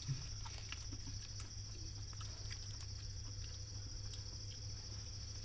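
Steady high chirring of crickets over a low hum, with faint scattered crinkles and clicks as hands pick food off aluminium foil.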